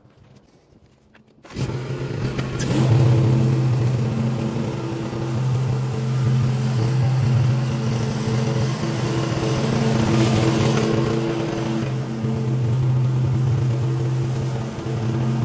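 A small gasoline engine of lawn equipment cuts in suddenly about a second and a half in and runs steadily at high speed, its pitch shifting slightly under load.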